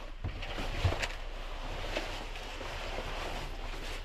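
Clothing and a sleeping bag rustling as a person changes out of jeans in a cramped truck bed, with a few soft knocks on the plank floor, the strongest about a second in.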